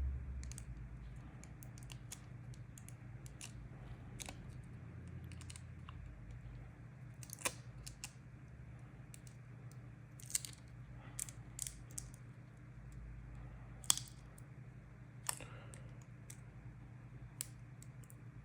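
Scattered light clicks and taps of small tools and phone parts being handled on a workbench, the sharpest about seven and a half and fourteen seconds in, over a steady low hum.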